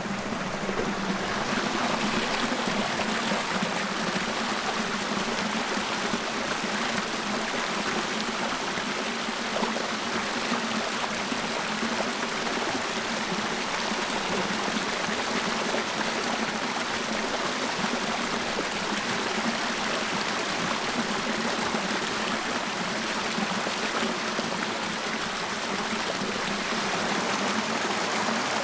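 A small rocky brook running steadily over and between stones.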